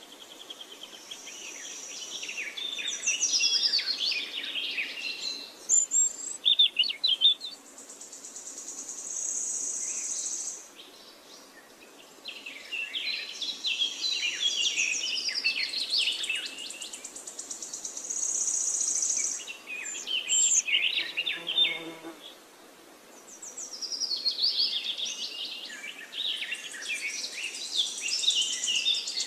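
Birds chirping and singing in repeated bouts of quick calls, with a high steady insect buzz coming and going between them: a nature-ambience soundtrack.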